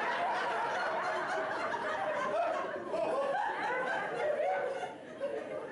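An audience laughing and chuckling, many voices overlapping.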